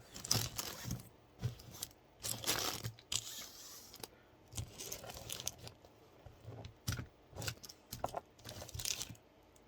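Packaging rustling, crinkling and scraping in irregular bursts as a computer power supply is unpacked from its box.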